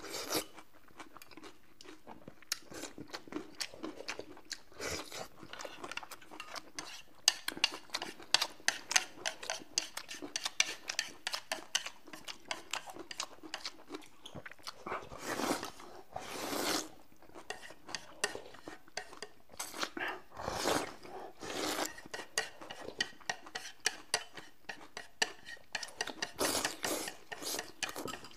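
Eating at a table: cutlery clicking and clinking against dishes in many quick, irregular taps, with chewing mixed in.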